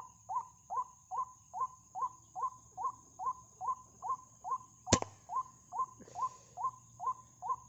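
White-breasted waterhen calls: a fast, even run of identical short 'kruak' notes, about two and a half a second. About five seconds in, a single sharp crack from an air-rifle shot.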